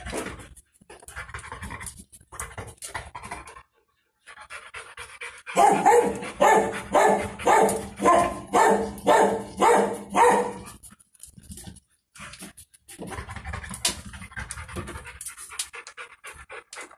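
A large dog panting in even, rhythmic breaths, about two a second, loudest in a run through the middle; fainter, looser panting before and after it.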